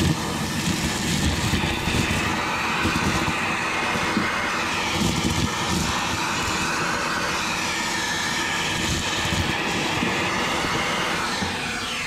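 Vacuum cleaner running steadily with its nozzle in the bottom of a car door cavity, sucking up shattered side-window glass, with uneven low knocks.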